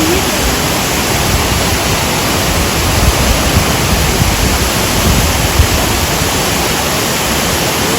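Loud, steady roar of a waterfall close by. Wind buffets the microphone.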